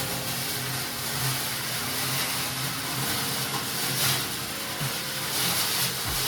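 An electric motor running steadily with a hiss over its hum, the hum's pitch shifting slightly about halfway through.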